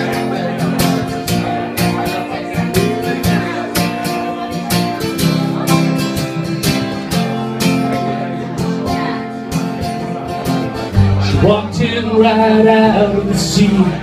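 Live country-rock band playing an instrumental passage: strummed acoustic guitar with electric guitar, bass guitar and a drum kit keeping a steady beat. About three seconds before the end, the bass comes in heavier and the music gets louder.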